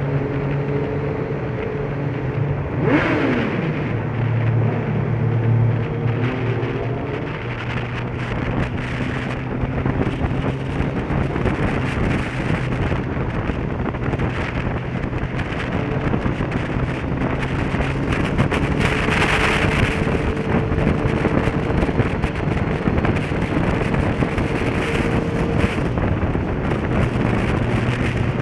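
Motorcycle running at a steady cruising speed, its engine hum held steady under a continuous rush of wind and road noise. A short falling tone sweeps down about three seconds in.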